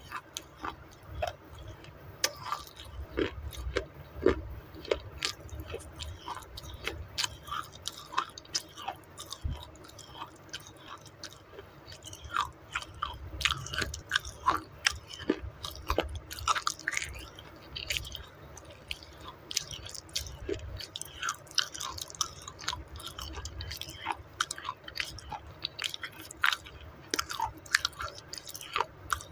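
Close-miked chewing of a mouthful of wet, mashed baked clay: an irregular, steady run of small crunches and moist crackles.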